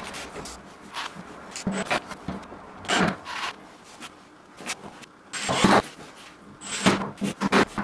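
Irregular knocks, scrapes and rustles of hands-on door installation work: tools and parts being handled and shoes shuffling on paper floor covering, with a few longer rubbing sounds.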